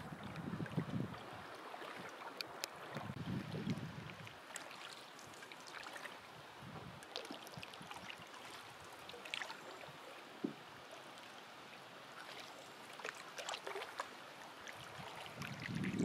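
A wooden cedar-strip canoe being paddled: water trickling and lapping along the hull, with small splashes and drips from the paddle strokes. Low gusts of wind buffet the microphone in the first few seconds and again near the end.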